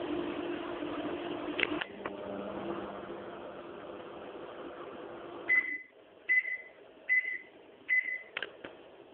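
Microwave oven running with a steady hum and a click about two seconds in. The hum cuts off about halfway through and the microwave beeps four times at an even pace, signalling that the heating cycle is done.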